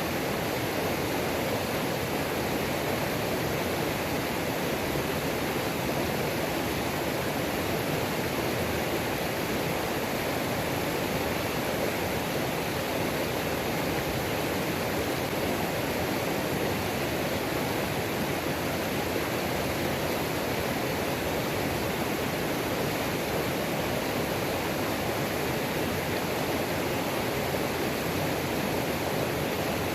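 Waterfall on a mountain creek: a steady, unchanging rush of falling and tumbling water.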